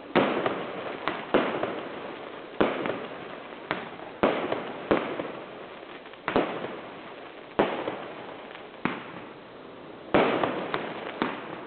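Fireworks display: about a dozen aerial shell bursts at uneven intervals, each a sharp bang that trails off over a second or so.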